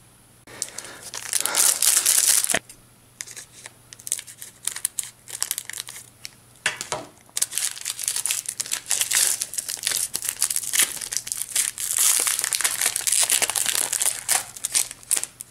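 Foil trading-card booster pack wrapper crinkling and tearing as it is opened, in scattered crackles with louder bursts about a second in and again near the end.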